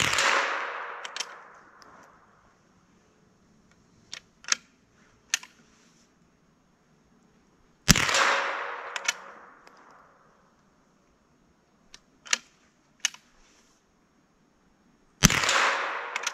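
.22 LR rifle fired three times, each sharp crack followed by about two seconds of echo fading through the trees. Between the shots come a few small metallic clicks of the rifle's action being worked to reload.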